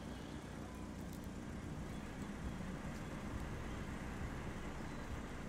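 A car driving, with a steady low rumble of engine and road noise.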